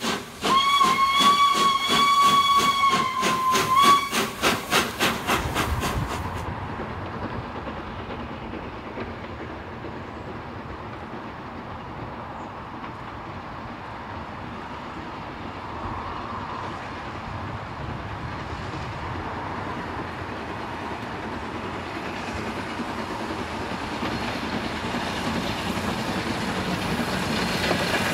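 Steam locomotive whistle blowing one long steady note for about four seconds over the rapid exhaust beats of a working steam engine. Then a quieter, steady noise of an approaching steam train, growing louder towards the end as the chuffing of the double-headed tank engines comes in.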